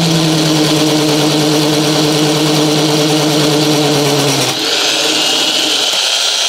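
Electric hand drill running, drilling a hole into a CD player's sheet-metal chassis: a steady motor whine with a high hiss. About four and a half seconds in the low hum drops away while the high whine goes on.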